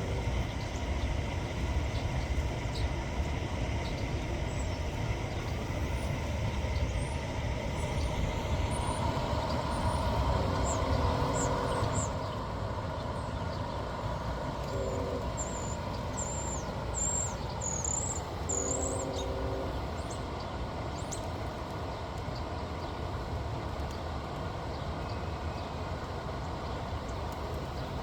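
Steady low rumble of passing vehicle traffic, with three short droning tones partway through and a run of thin high chirps a little after the middle.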